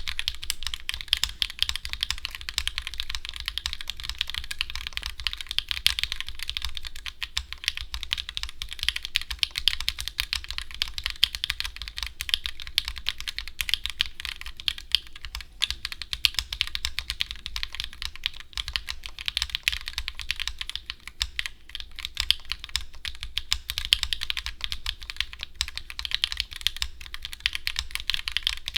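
Dark Magnum Ergo-i mechanical keyboard with Gateron Deepping switches in an aluminium case being typed on steadily, a fast, continuous stream of key clacks.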